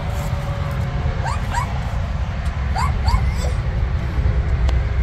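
A dog giving short high-pitched yips that rise in pitch, in quick pairs: about a second in, about three seconds in, and again at the very end. A steady low rumble runs underneath.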